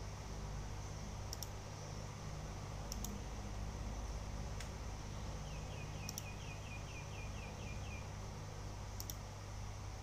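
Steady low hum with a few sharp clicks scattered through it, and a quick run of about ten high ticks in the middle.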